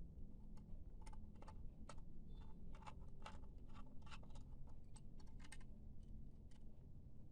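Quick, irregular light clicks and taps of a laptop drive and its bracket being handled and fitted into place, over a steady low hum.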